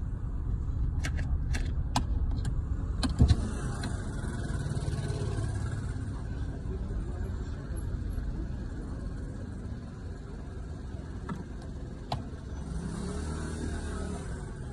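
Steady low rumble of a running road vehicle, with a few sharp clicks between about one and three seconds in and another near twelve seconds.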